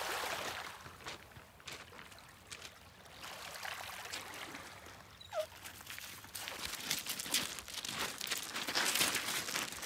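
Small waves lapping and trickling over a pebble beach, with footsteps crunching on the pebbles, more and louder in the second half.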